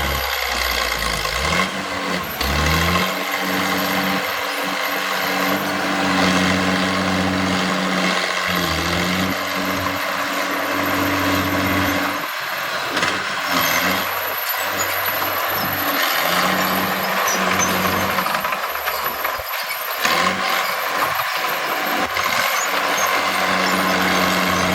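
Heavy diesel engine of earthmoving machinery working under load, its pitch rising and falling repeatedly as it revs up and eases off.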